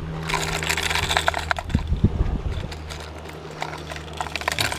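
Hard plastic fishing lures clicking and clattering in a clear plastic tackle box as a hand rummages through it and picks one out, in two bursts of rapid clicks.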